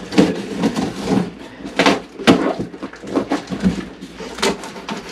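A big cardboard shipping box being torn open by hand: packing tape ripping and cardboard flaps crackling and scraping, with a few sharper rips about two seconds in and again near the end.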